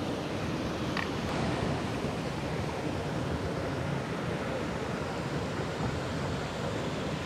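Steady rushing of a creek flowing over rocks.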